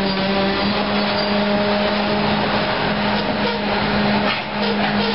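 Coal hopper cars of a freight train rolling over a grade crossing: a steady rumble and clatter of steel wheels on rail, with a run of quick wheel clicks over the rail joints about four seconds in. A steady low drone runs underneath, from the train's EMD SD40 diesel locomotive drawing near.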